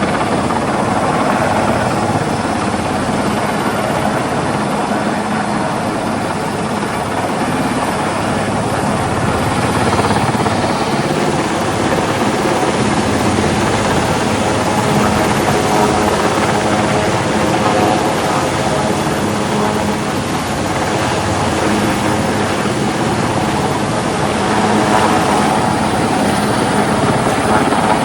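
Helicopter flying, a steady unbroken rotor and engine noise.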